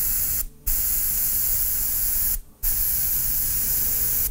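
Airbrush spraying acrylic paint: a steady high hiss of air and paint in three bursts, with two short breaks, about half a second in and about two and a half seconds in.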